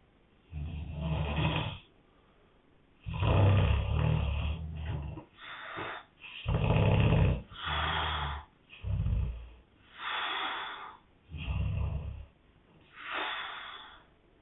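A man snoring in his sleep: about nine snores in a row, each around a second long with short gaps between, with a low flutter in each.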